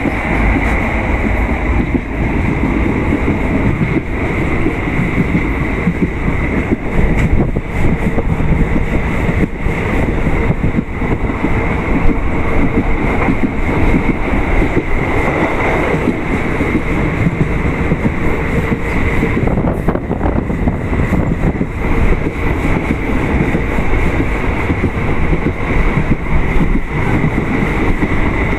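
Passenger train running, heard from on board: a steady loud rumble of the wheels on the rails, with frequent short knocks and clatter throughout.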